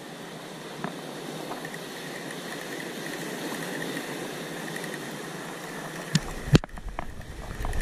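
Surf washing steadily over sea rocks while a spinning reel is wound in. About six seconds in come several sharp knocks, one of them loud, over a low rumble, as the gear is handled.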